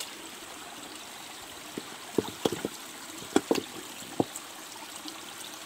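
Shallow forest stream trickling steadily over stones, with a quick series of short plops and clicks between about two and four seconds in as a hand works in the water among the rocks.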